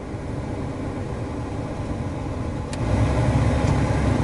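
Second-generation Ford Explorer running at idle with its air conditioning on. A click comes about two and a half seconds in, after which the running sound grows louder and deeper.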